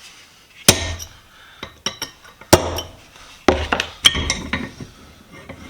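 Several sharp metallic clanks and clinks, each ringing briefly, as the parts of a utility vise are knocked apart and handled during disassembly.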